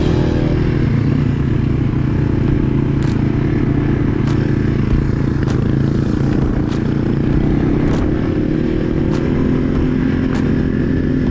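Small air-cooled single-cylinder Yamaha dirt bike engine running at a fairly steady speed while being ridden, with a few sharp ticks and rattles over it.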